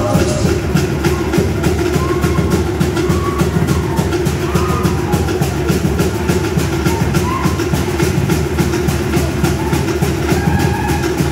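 Fast, even drumbeat of Samoan group-dance music, several strokes a second. The singing stops right at the start and the drumming carries on alone.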